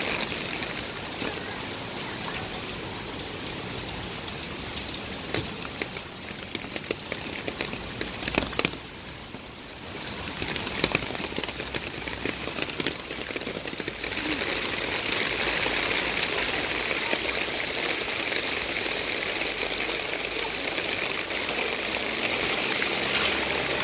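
Steady rain falling on wet pavement and road: an even hiss with scattered drop clicks, dipping briefly about nine seconds in, then growing louder and brighter from about fourteen seconds on.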